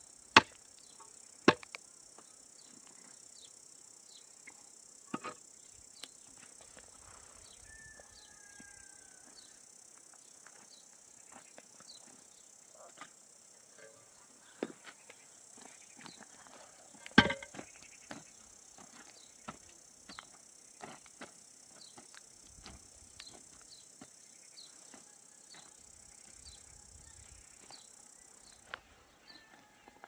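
Insects buzzing steadily with a high, even hiss and a faint chirp about every half second; the buzz cuts off shortly before the end. A few sharp knocks stand out, the loudest about half a second in, about a second and a half in, and about seventeen seconds in.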